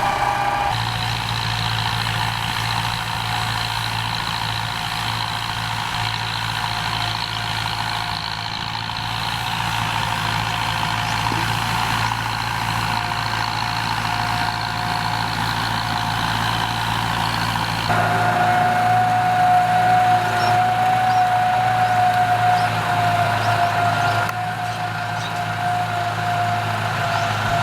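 Kubota M9540 tractor's diesel engine running steadily under load while ploughing, with a continuous whine. About two-thirds of the way in, a higher whine gives way abruptly to a lower one.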